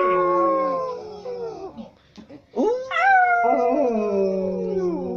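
Schnauzer howling: a long howl sliding down in pitch that trails off about two seconds in, then after a short pause a second howl that swoops up sharply and slowly falls away.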